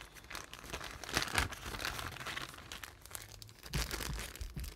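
Plastic bag of fly-tying wool crinkling and rustling as it is handled, in irregular spells, louder about a second in and again near the end.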